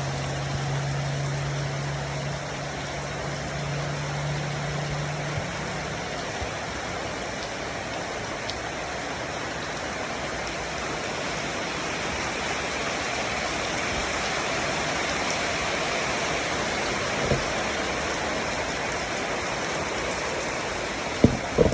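Heavy rain pouring down steadily, an even hiss. A low steady hum runs under it for the first five seconds or so, then stops, and there are a few sharp knocks near the end.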